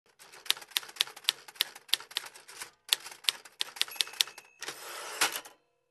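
Manual typewriter typing: a dozen or so sharp keystrokes with a short pause partway, then a longer sliding sound and one last strike near the end.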